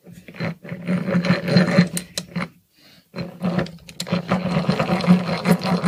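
Hand-cranked drill turning a twist bit into hardwood, its gear wheel rattling as it is cranked. There are two spells of cranking, with a short pause a little before halfway.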